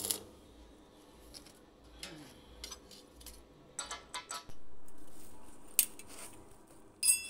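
A short crackle of a stick-welding arc at the start, then scattered metallic clinks and knocks as a stainless steel pipe is handled, with a quick run of clicks near the end.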